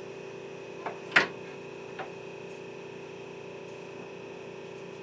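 Inside a JR Kyushu BEC819 series battery-electric train car: a steady electrical hum from onboard equipment with no motor whine rising or falling. A sharp click comes just after a second in, with fainter clicks either side of it.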